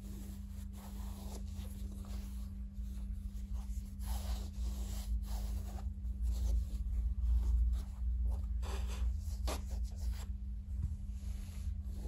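Hands handling black suede shoes: the rope laces and suede rub and rustle in short, scratchy strokes, over a steady low hum.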